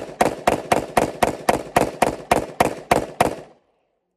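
Rapid string of pistol shots, about four a second, each a sharp crack with a short echo; the firing stops a little before the end.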